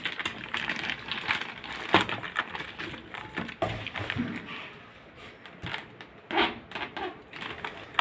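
Irregular clicks, taps and crinkling of packaging being handled during unboxing.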